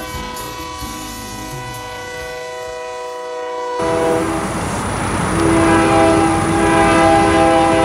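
Freight locomotive air horn sounding a held chord. About four seconds in, the sound cuts to a louder horn blast over the rumble of the passing train.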